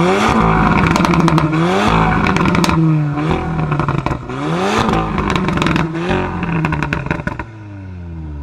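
Volkswagen Golf 7 R's turbocharged 2.0-litre four-cylinder revved through a REMUS exhaust, blipped up and down several times with crackles and pops as the revs fall. It settles back to idle near the end.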